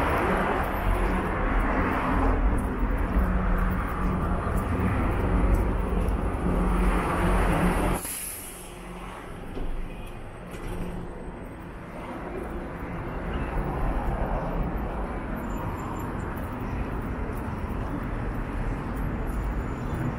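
Road traffic passing close by: a heavy vehicle's engine runs loudly with a steady low hum for the first eight seconds, then a brief air-brake hiss about eight seconds in as it drops away, leaving quieter passing-car noise.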